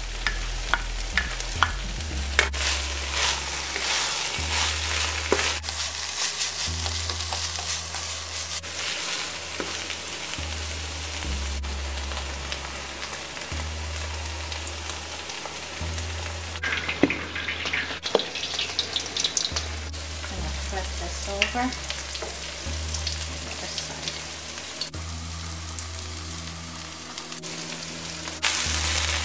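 Salt bake dough frying in hot oil in a deep pot, a steady sizzle that restarts with each short clip, with a low hum under it.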